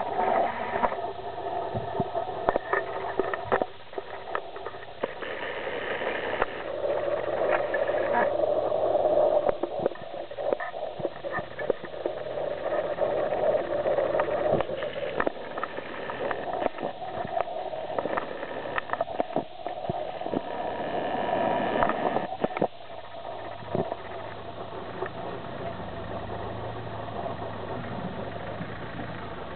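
Land Rover Defender's engine running under load as the 4x4 crawls over a rough, rocky off-road track, its pitch and level rising and falling, with scattered knocks throughout. It grows louder around 9 s and again around 22 s, then settles to a lower steady hum near the end.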